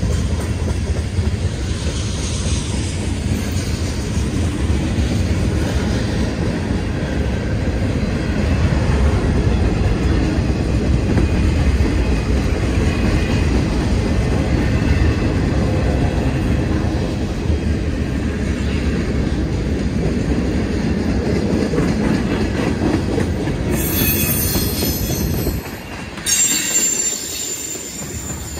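Freight train cars rolling past at close range: a steady rumble of steel wheels on rail. Near the end, a high wheel squeal rings out twice.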